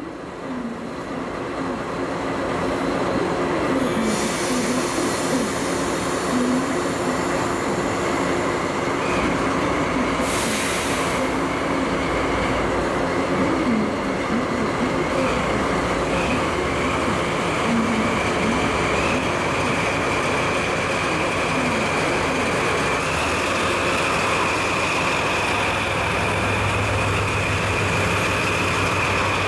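DD51 diesel-hydraulic locomotive hauling 12-series passenger coaches, rolling slowly past at close range: engine running, with wheel-on-rail rumble. A steady high squeal sets in after about nine seconds, a short hiss comes about ten seconds in, and a low engine hum grows near the end as the locomotive draws alongside.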